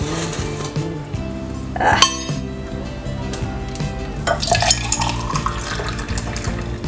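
A metal lid comes off a steel shaker container with a sharp clack about two seconds in, then the shaken orange drink is poured into a glass, the pour's tone rising as it runs. Background music plays underneath.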